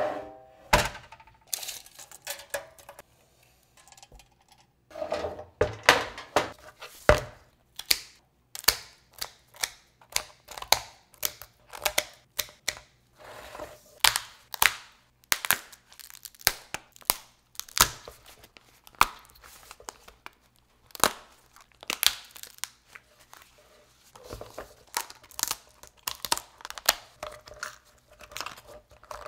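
A metal sheet pan set down with a short ringing clank, then the shell of a large raw lobster tail cracking and crinkling in many irregular snaps as gloved hands pry it open and pull the meat out.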